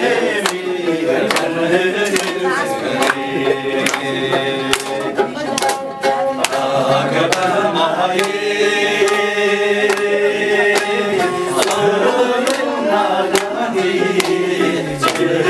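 Group of men singing a Tibetan song together, accompanied by a strummed mandolin-like string instrument and steady hand clapping about twice a second.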